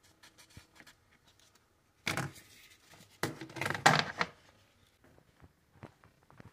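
Paper coffee filters rustling as one is peeled off a stack in a plastic storage box, then two louder spells of crinkling and knocking handling noise, about two seconds in and again about three and a half seconds in.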